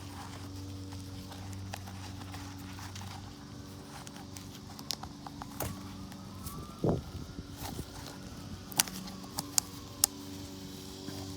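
A faint siren wailing, one slow rise and fall in pitch through the second half, then rising again near the end, over a steady low hum. A few sharp clicks and taps punctuate it, the loudest three near the end.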